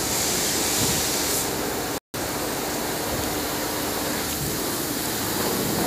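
Steady rushing hiss of outdoor noise with a faint steady hum through part of it; the sound drops out completely for a moment about two seconds in.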